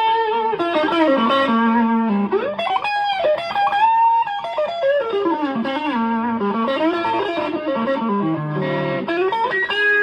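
Electric guitar played through a JOYO Tai Chi (R-02) low-gain overdrive pedal, giving a warm, lightly overdriven near-clean tone. It plays a single-note lead line with several bent notes that glide up and back down.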